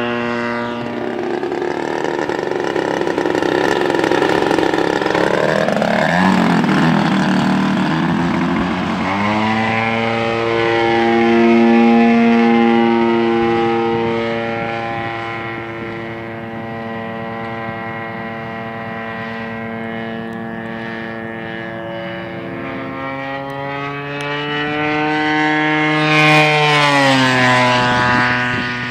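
O.S. GT55 55cc single-cylinder two-stroke gasoline engine spinning the propeller of a giant-scale RC biplane in flight. The engine note rises and falls with throttle and the plane's moves, holds steady for a long stretch in the middle, then climbs and drops sharply as the plane makes a low fly-past near the end.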